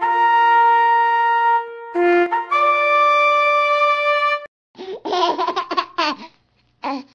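Intro jingle of two long held musical notes, the second pitched a little higher, followed about halfway through by a short burst of laughter and a brief second laugh near the end.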